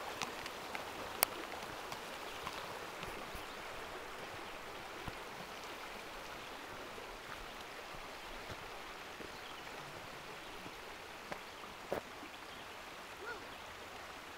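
Creek water running with a steady rush, easing slightly, with a few faint sharp clicks, one about a second in and two near the end.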